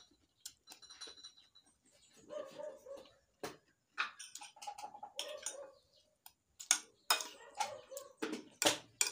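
Metal spoon clicking and scraping against a ceramic bowl of rice while eating, in irregular sharp clicks with some of them louder near the end.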